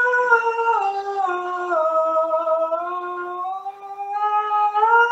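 A male voice singing one long held vowel high in his range. The pitch steps down about a second in and climbs back to the starting note near the end, a back-and-forth pitch exercise sung without getting louder.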